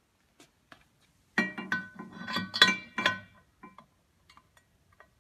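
Metal hand tools clinking against each other and a metal tool tray, a quick run of clinks with short ringing notes starting about a second and a half in, then a few faint ticks.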